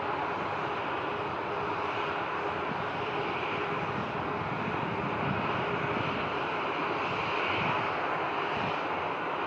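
Airbus A320-216's CFM56 turbofan engines running on the arriving airliner: a steady jet rush with a faint whine, getting slightly louder.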